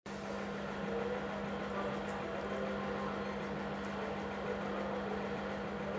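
Samsung washing machine running with a steady, even hum.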